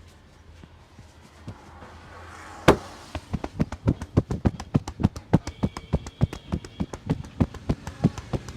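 Hands rapidly slapping and tapping on a head and shoulders during a barber's percussive head massage, about six or seven quick strikes a second. The run starts with one loud, sharp smack a little before the midpoint.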